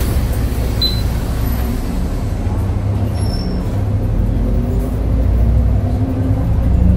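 Cabin noise of an Edison Fibird city bus driving along a street: a steady low rumble from the drivetrain and tyres, with a couple of brief faint high squeaks about one and three seconds in.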